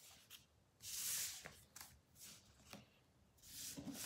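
Cardstock cards sliding across a wooden surface: a soft swish about a second in and another near the end, with a few light taps in between as cards are picked up and set down.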